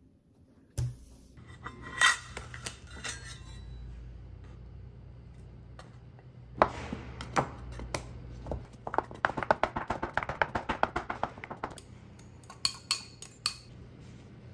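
Steel bench scraper chopping butter into flour on a wooden board: a fast run of light taps, about nine a second, with a few louder clinks of kitchen utensils about two seconds in. A steady low hum runs underneath.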